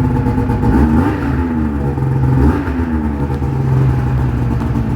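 2004 Ski-Doo MXZ X 600 SDI snowmobile's two-stroke twin running after its rebuild, blipped up in revs and back down twice, about a second in and again a second and a half later.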